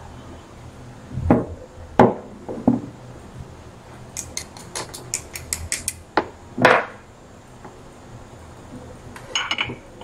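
Small metal hand tools being handled and set down on a workbench: a few knocks, then a quick run of about ten sharp, light clicks, another knock, and a short clatter near the end.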